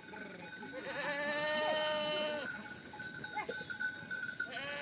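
Goats bleating: one long, wavering bleat about a second in, then shorter bleats near the end.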